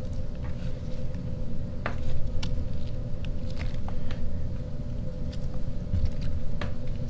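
A hand rustling and scratching through moist worm-bin bedding of castings and shredded cardboard, giving scattered soft crackles and clicks, over a steady low rumble and hum.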